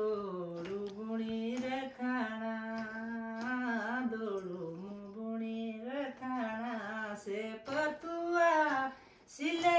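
A woman singing a local Himachali folk song solo and unaccompanied, in long held notes with wavering ornaments and short breaks for breath near the end.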